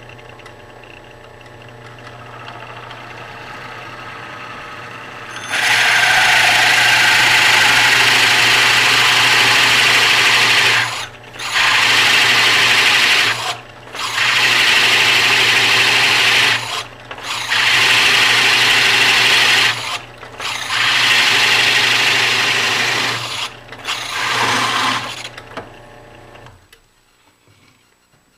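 Drill press running with a hole saw cutting a round hole through a wooden block. The motor hums at first, then the cut starts with a loud, steady rasping whine. The whine comes in six spells with short breaks as the saw is eased off and fed back in. Near the end the cut stops and the motor winds down.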